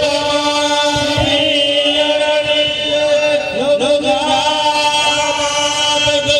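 Devotional chanting in song, voices gliding over a steady held drone note that is sustained without a break.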